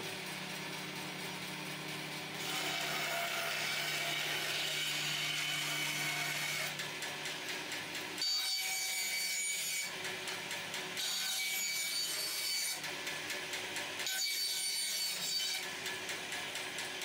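Woodworking bandsaw with a freshly fitted blade running and cutting through a wooden board. The motor hums at first, and about two seconds in the sound grows louder and fuller as the blade saws through the wood.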